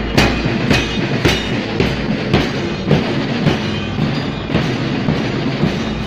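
Marching band music: a steady drum beat of about two strokes a second with held instrument tones over it, keeping time for a column marching in step.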